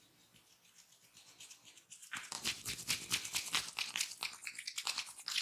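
Massage strokes: hands rubbing briskly over skin or hair, a fast scratchy scrubbing at about six strokes a second that starts about two seconds in and grows louder.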